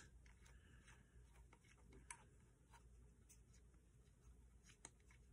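Near silence with a few faint ticks from a thumb screw being turned to fasten a GoPro Hero 8's built-in mounting fingers onto a mini extension pole mount; the clearest tick comes about two seconds in.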